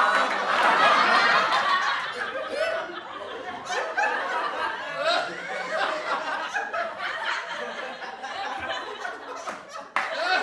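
Several people laughing together, loudest in the first two seconds, then dying down to scattered chuckles and some chatter before a fresh burst of laughter near the end.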